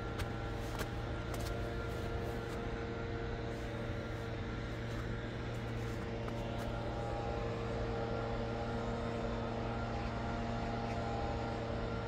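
A steady mechanical hum with several held tones over a noise bed, like motor traffic, with a few short clicks in the first second or two.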